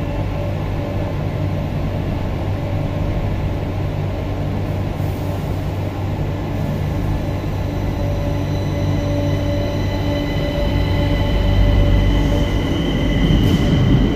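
Metro de Madrid electric train setting off from the platform. A steady low hum gives way, from about halfway in, to a whine from its traction motors that climbs slowly in pitch and grows louder as the train gathers speed.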